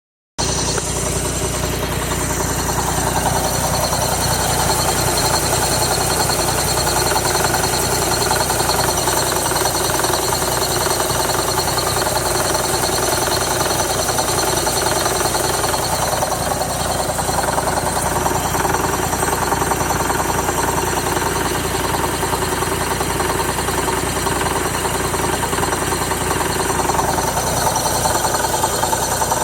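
2006 Mazda Miata's 2.0-litre four-cylinder engine idling with a rapid, steady knocking. The knock comes from a failing A/C compressor, which once replaced cured both the knock and the rough idle.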